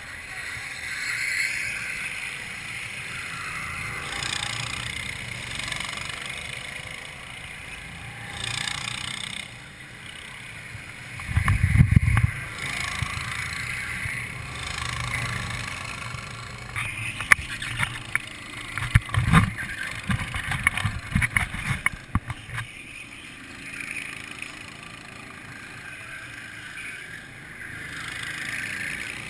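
Distant go-kart engines buzzing around the track, swelling and fading as the karts pass. A heavy low thump comes a little before halfway, and a few seconds later there is a run of knocks and crackles lasting about five seconds as the camera is moved.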